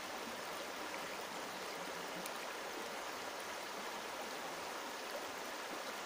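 Shallow, stony mountain river running over rocks: a steady, even noise of flowing water.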